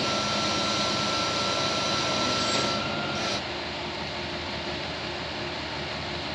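Utility boom truck's engine running steadily, with a thin high whine over it that cuts off a little over three seconds in, leaving a slightly quieter steady run.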